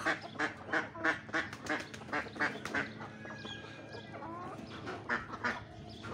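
Domestic ducks quacking in a quick run of calls, about three a second, easing off after about three seconds and picking up again briefly near the end.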